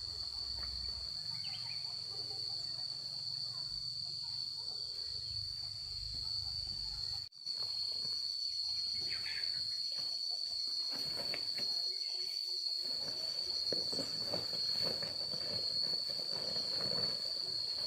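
Insects, crickets or cicadas, giving a continuous high-pitched chirring drone that stays steady throughout, with a low hum under it for the first seven seconds. The sound cuts out for an instant about seven seconds in.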